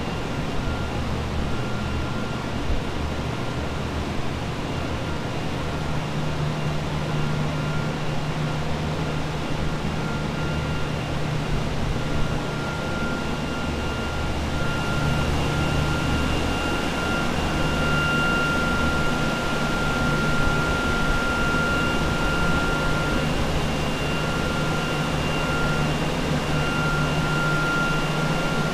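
Several carpet-drying air movers and a dehumidifier running steadily, set up to dry out a water-damaged building: a continuous rushing hum with a thin high whine that grows stronger about halfway through.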